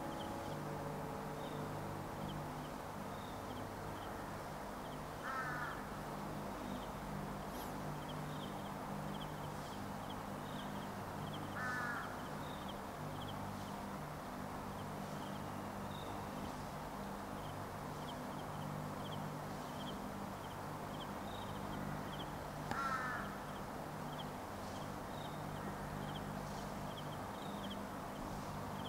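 A crow cawing three times, each caw short and several seconds apart, over a steady low hum and faint high chirps.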